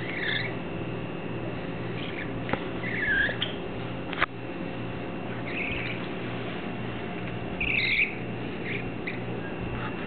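Baby budgerigars, about three weeks old, giving scattered short chirps, the loudest about eight seconds in. Two sharp clicks come at about two and a half and four seconds in.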